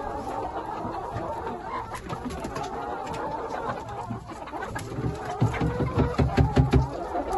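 A flock of brown laying hens clucking without pause, excited at feeding time, with scattered light taps. A run of quick low thumps comes about five seconds in.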